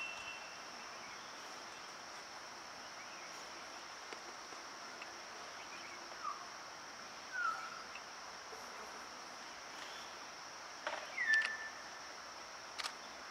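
Steady high-pitched drone of insects such as crickets or cicadas, with a few brief chirps breaking in now and then, the loudest about eleven seconds in.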